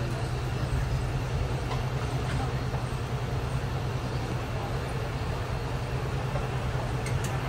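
Passenger train running, heard from on board: a steady rumble of the coaches on the track over a constant low drone, with a few faint ticks.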